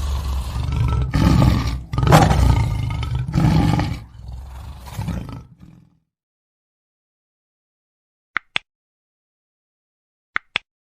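Lion roaring: several deep, loud roars in a row that trail off quieter and stop about six seconds in. Near the end, two pairs of very brief high clicks.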